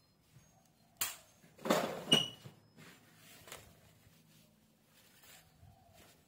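Banana leaf rustling and crackling as it is handled and spread flat on a wooden chopping block: a sharp rustle about a second in, a louder crackly stretch just after, then faint rustles as it is smoothed down.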